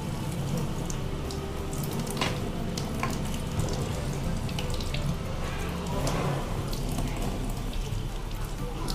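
Tap water running into a stainless steel sink and splashing over raw fish pieces as they are rinsed by hand, with a few light knocks about two and three seconds in.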